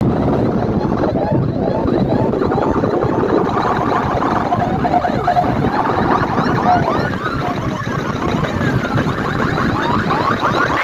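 Sound rigs of clustered horn loudspeakers blasting against each other at full volume: a dense clash of overlapping siren-like sweeping tones over a heavy, continuous low end.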